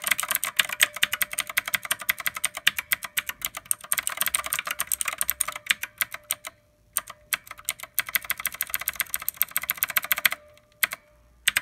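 Fast typing on a Redragon Kumara mechanical keyboard fitted with its original keycaps and no O-rings: a dense run of keystroke clicks with a short pause about six seconds in, ending in a few scattered keystrokes.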